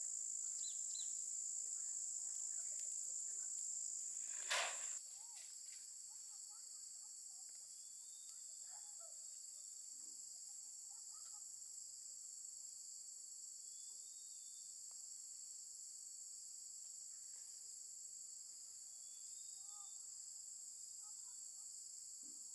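Steady high-pitched drone of an insect chorus, with faint scattered chirps. A single sharp knock about four and a half seconds in, after which the drone continues slightly quieter.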